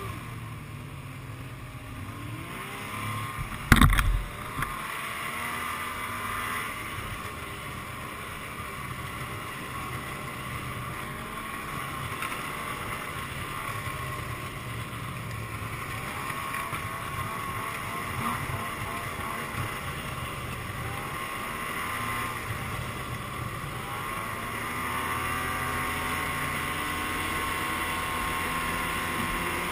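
Yamaha snowmobile engine running under way, its pitch rising and falling with the throttle. A single sharp knock about four seconds in is the loudest sound.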